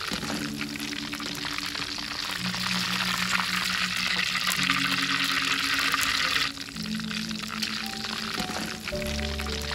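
Hot cooking oil sizzling steadily in a wide wok. The hiss grows louder a couple of seconds in and dips briefly past the middle. Soft background music with held notes plays under it.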